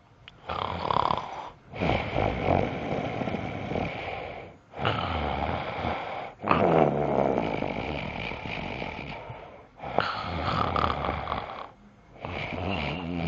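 Snoring: a series of long, noisy breaths, each lasting one to three seconds, with short pauses between them.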